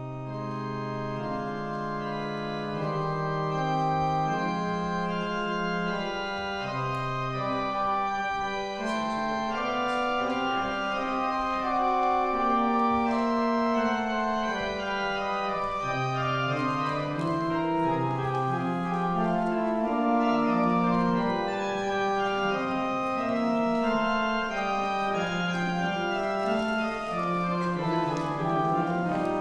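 Organ playing slow, held chords over a bass line that steps from note to note, growing a little louder over the first few seconds.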